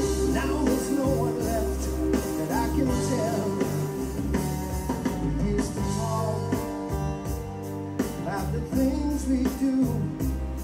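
A rock-style song with singing, guitar and drums and a heavy, pulsing bass line, played back through a car audio system with a trunk-mounted subwoofer box and speakers.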